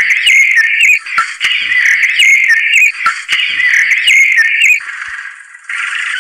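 High-pitched electronic background music: a short chirpy synth phrase with clicks, played three times about a second and a half apart. It breaks off briefly near the end.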